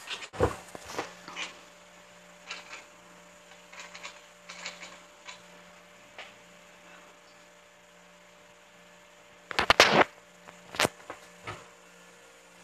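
Tabby cat making short chirps now and then while hunting a fly, over a steady electrical hum, with a louder burst of sharp knocks about ten seconds in.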